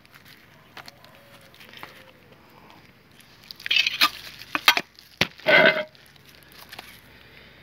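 Handling noises from scooping polyester body filler out of a metal tin and working it onto cardboard: faint scraping, then a few sharp clicks and two louder scraping rasps about four and five and a half seconds in.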